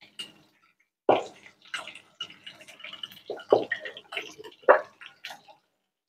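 Metal spoon clinking and scraping in a glass jar as it scoops pork cracklings out of liquid lard, with wet drips and plops. The knocks are irregular, with a few louder ones.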